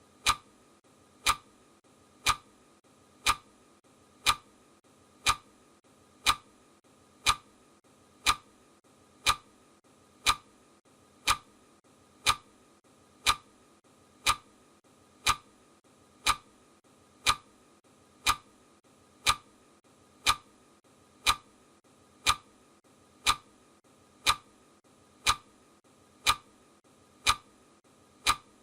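Clock ticking sound effect, one sharp tick every second, counting down a timer.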